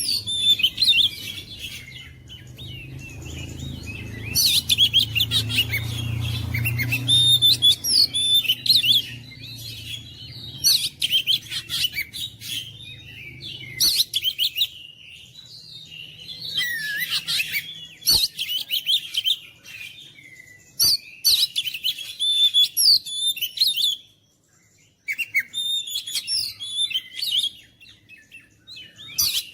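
Oriental magpie-robin singing a varied song of rapid high whistles and chirps, in bouts of a few seconds with short pauses between them.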